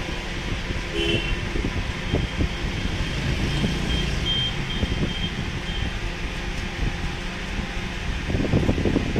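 Steady fan-like background noise with scattered light handling knocks and plastic rustles as a ring light is fitted onto the microscope, with a short string of faint high beeps in the middle.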